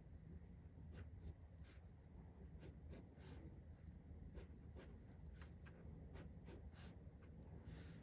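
Faint scratching of a pencil on drawing paper: short, light strokes at an irregular pace, over a steady low hum of room tone.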